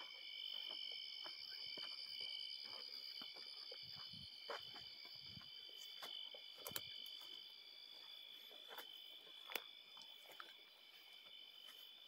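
Night insects trilling steadily in several high pitches at once, faint, with scattered soft crunches and clicks of footsteps on a dirt path through dry vegetation.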